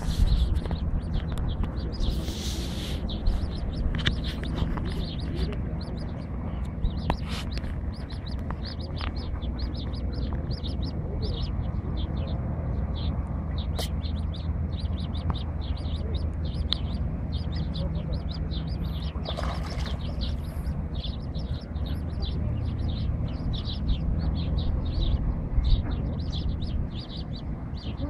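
Eurasian coot chick peeping: short, high chirps repeated several times a second without pause, over a steady low rumble.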